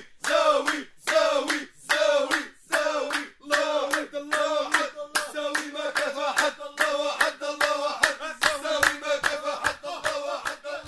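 Hand clapping in a steady rhythm, with voices and a steady held note underneath.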